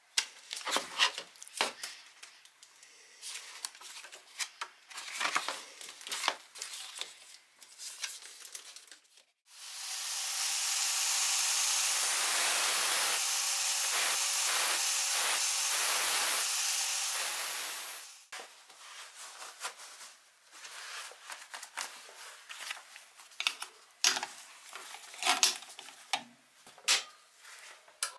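Clicks and knocks of handling, then a stick-welding arc hissing and crackling steadily for about nine seconds before it cuts off, followed by more clicks and knocks.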